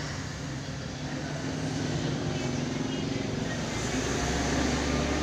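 Steady low mechanical hum with background hiss, joined by a deeper rumble that swells in about four seconds in.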